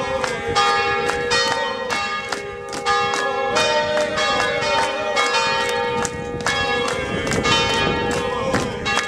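Church bells ringing in a full swinging peal, rung by hand-pulled ropes: strokes come irregularly about two or three a second, each leaving a long ringing tone that overlaps the next.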